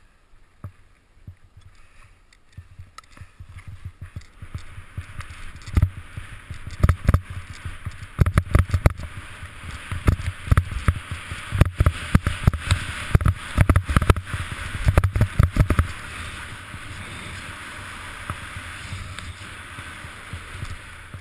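Skis running fast over snow with wind rushing over the microphone, a hiss that builds over the first few seconds. Many low thumps and knocks come between about 6 and 16 seconds in as the skis bump over the snow, then it settles into a steadier hiss as the run flattens out.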